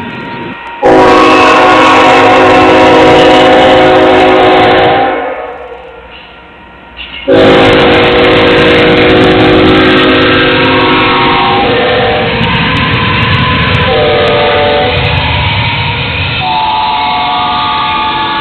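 Locomotive air horn sounding a chord: one long blast of about four seconds, then after a short break it sounds again and keeps going, its pitch shifting partway through. Beneath it is the low rumble of the moving train.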